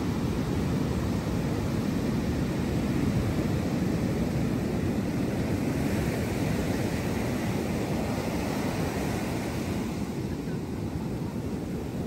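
Ocean surf breaking offshore and foam washing up onto the sand, a steady rushing noise.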